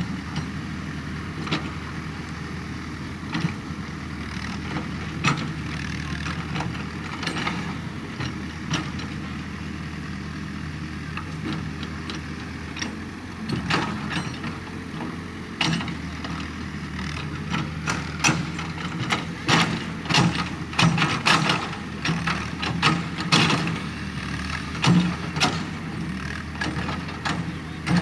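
Excavator engine running steadily, with repeated sharp knocks and clanks from the machine working, coming thicker and louder in the last ten seconds or so.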